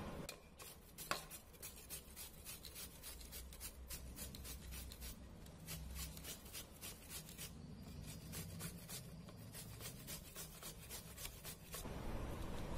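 Onion being grated on a metal grater: quick, repeated rasping strokes, faint.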